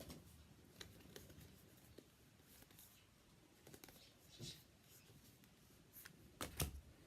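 Faint handling noises of Vanguard trading cards: scattered light clicks and short rustles, the loudest a quick double rustle near the end.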